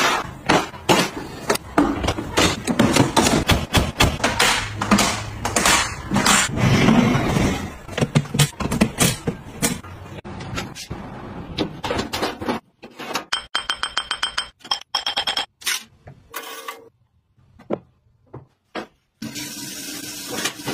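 Collapsible plastic storage boxes and cabinet panels being snapped open and handled: a busy run of clacks and knocks, thinning to scattered clicks and a few ringing clinks. Near the end, a steady hiss of running tap water.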